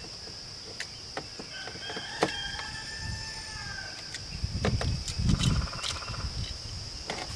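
Outdoor ambience dominated by a steady, high-pitched insect drone, with scattered light clicks and knocks. Louder low rumbling sounds come about four and a half to six seconds in.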